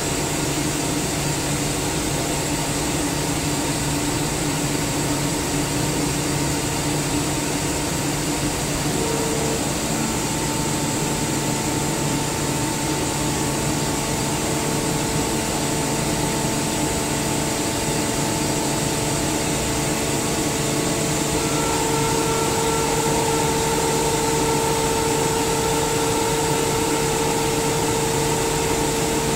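SCR Comp SCR50M rotary screw air compressor running steadily: a constant whirring hum with several held tones. A new tone comes in about a third of the way through, and the hum grows slightly louder and brighter past two-thirds.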